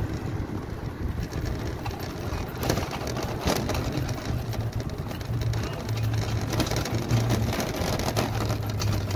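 Shopping trolley with a plastic basket being pushed, its wheels rolling and rattling over the road surface in a steady low rumble full of small clicks.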